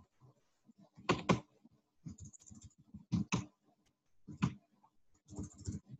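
Computer keyboard typing: a handful of sharp key taps, several in quick pairs, with softer key noise between them and a faint steady hum beneath.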